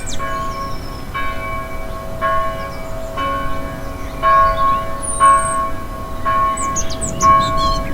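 A church bell tolling at an even pace, about once a second, each stroke ringing on into the next, while small birds chirp and twitter.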